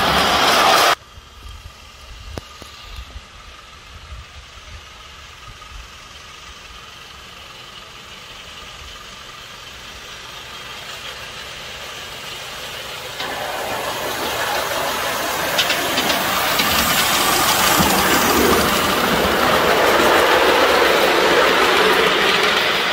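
3½-inch gauge live steam model of the locomotive Lilla running along a raised track with two riders: faint at first, it grows steadily louder as it approaches and is loud for the last several seconds as it passes close. A loud hiss in the first second cuts off suddenly.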